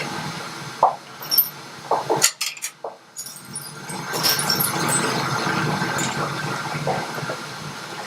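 Metal clinks and taps of tools and hardware as the rear axle nut is fitted on a motorcycle wheel: a few sharp clinks, then a busier stretch of handling noise.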